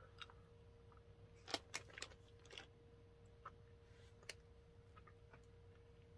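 Near silence: faint room tone with a steady hum, and a few faint clicks, mostly between one and a half and four and a half seconds in, from a person chewing a soft candy corn with the mouth closed.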